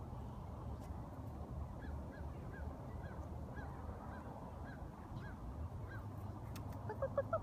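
Geese honking: a run of short calls about twice a second, louder near the end, over a low rumble.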